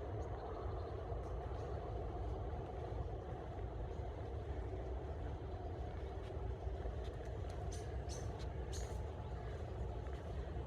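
Steady rushing of a river's flowing water, with a few brief high-pitched ticks in the later part.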